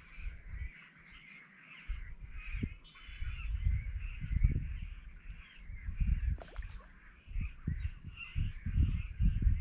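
Many birds chattering continuously in the mangroves, under irregular low rumbling gusts of wind on the microphone that grow stronger from about two seconds in.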